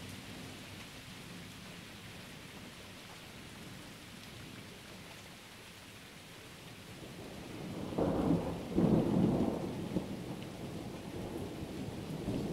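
Steady rain falling. About eight seconds in, a thunderclap breaks in suddenly and keeps rumbling and crackling in uneven peaks.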